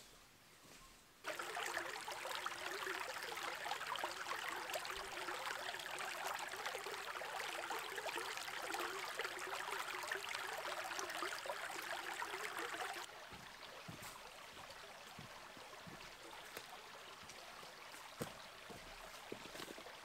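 Small shallow creek babbling over stones, starting suddenly about a second in and dropping to a softer trickle about two-thirds of the way through, with a few soft knocks in the quieter part.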